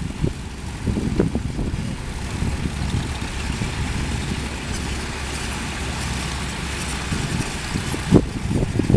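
Several antique farm tractors' engines running at low speed as they drive past one after another, a steady low rumble.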